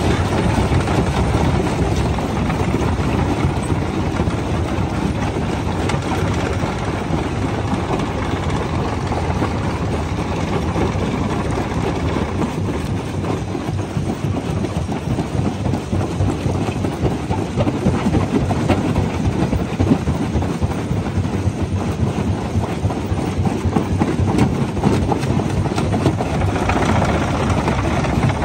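Rock crusher running with a load of stones, crushing and grinding them: a continuous deep rumble thick with cracking and rattling.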